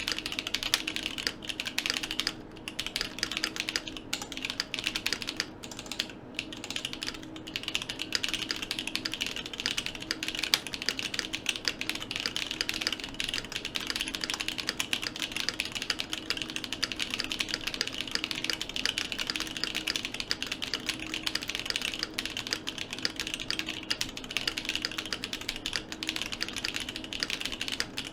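Fast continuous typing on a Fruit Bar 40% mechanical keyboard with Glorious Holy Panda tactile switches: a dense stream of key clacks, with a few short pauses in the first eight seconds.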